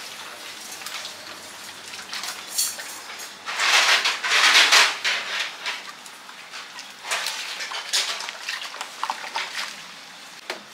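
Kitchen cooking noise: a steady hiss with scattered clatter of utensils and dishes, and a loud hissing surge lasting just over a second about three and a half seconds in.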